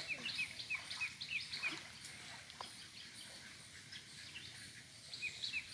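A bird chirping over and over, short high chirps about four a second, fading out midway and starting again near the end.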